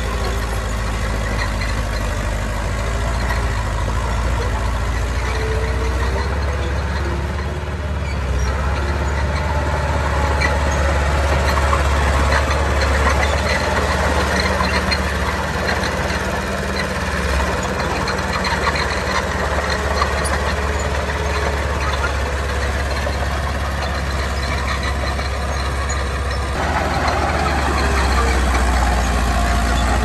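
Heavy diesel engine of earthmoving machinery running steadily with a low drone. It grows a little louder about ten seconds in and again near the end.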